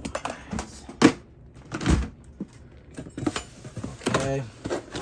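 Hands moving a metal tin box and a cardboard box: a sharp knock about a second in, a dull thump about two seconds in, and lighter scraping and rustling between.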